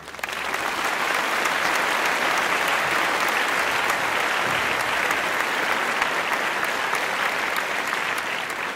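A crowd applauding, many hands clapping in a dense, steady patter that dies down near the end.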